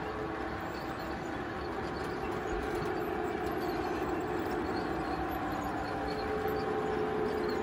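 Model train running on the layout: a long rake of model hopper wagons rolls over the track with a steady rolling noise and a steady motor hum, growing slightly louder as the train passes.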